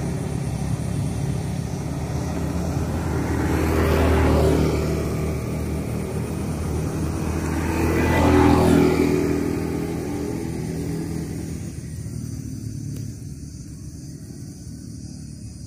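Motor vehicles passing by on a road: engine noise swells and fades twice, louder about four seconds in and again about eight seconds in, then dies away toward the end.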